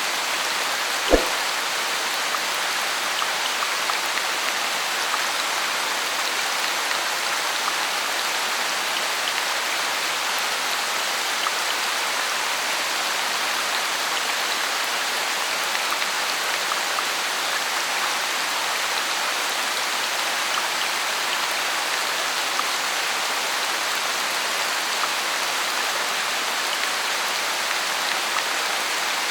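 Steady rain falling, an even hiss with scattered drop ticks. A single short low thump about a second in.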